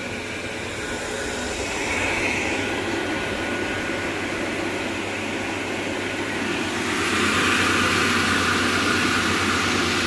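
Salvaged range hood extractor fan running on its high-speed winding: a steady rush of air over a low motor hum. It grows louder about two seconds in, and again from about seven seconds in.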